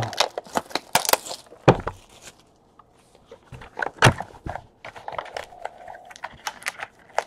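Cardboard trading-card box being handled and opened by hand: scattered taps, knocks and scrapes of the lid and box, with a few sharper knocks about one, one and a half and four seconds in.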